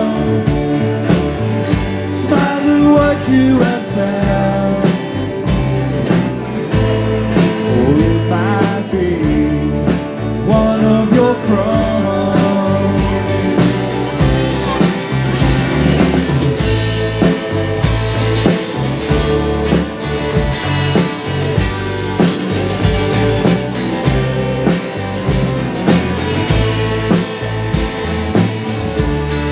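Live band playing: acoustic and electric guitars, bass and drum kit with a steady beat. A man sings over it for roughly the first ten seconds, then the band plays on instrumentally.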